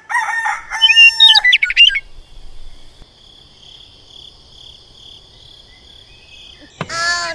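Bird chirps and calls for the first two seconds, then a steady high insect trill like crickets. Near the end, two loud pitched calls cut in.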